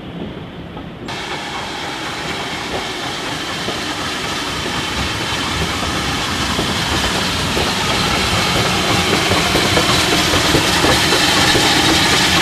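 Preserved steam train running along the line, its wheels and running gear clattering with some steam hiss, growing steadily louder as it approaches.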